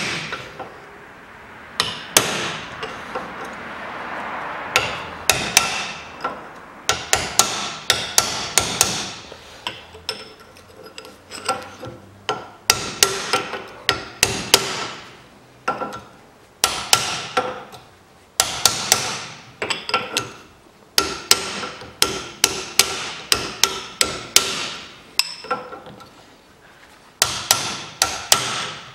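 Hammer driving a chisel against the old wheel-bearing inner race on a VAZ-2110 front hub held in a vise. Repeated sharp steel-on-steel blows come in quick bursts of several strikes with short pauses between, each ringing briefly, as the race is knocked off the hub.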